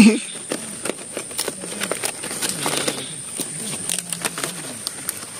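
Salak palm leaves rustling and crackling as they are handled and woven into roof thatch, in quick irregular clicks and snaps.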